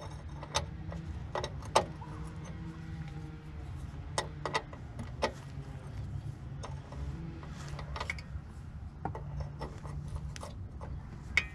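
Irregular metallic clicks and taps of a wrench on an oil pan drain plug as it is loosened a bit at a time, over a low steady hum.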